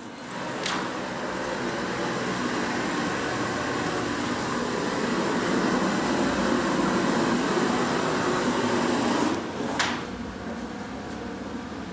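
A machine with a motor runs steadily with an even whir for about nine seconds, then shuts off with a click near the end.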